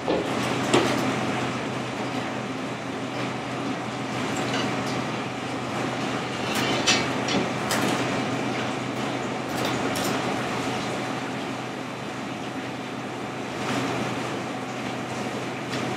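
Steady hum of kitchen machinery, with a few short knocks and scrapes as a fillet knife works along a halibut's bones and the fish shifts on a wooden cutting board.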